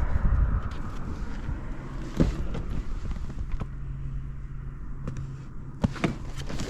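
Honda Ape 100 single-cylinder four-stroke engine idling steadily through a Yoshimura titanium exhaust, with a few sharp knocks over the top. It runs with no abnormal noise.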